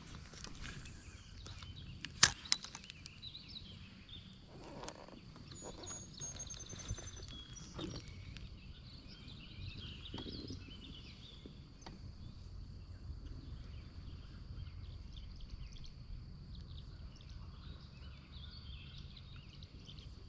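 Quiet outdoor ambience: a low steady background hiss with faint bird chirps. A single sharp click about two seconds in stands out, among scattered small clicks and knocks.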